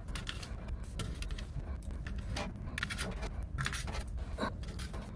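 Scattered small clicks and scrapes of hands handling parts on a battery module, over a faint steady low rumble.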